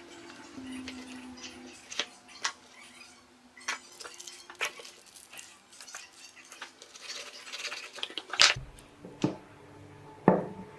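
Hands unpacking a model engine kit: scattered taps and clicks of the cardboard box and parts being handled, a small plastic parts bag crinkling about two-thirds of the way in, and a heavier thump soon after as something is set down.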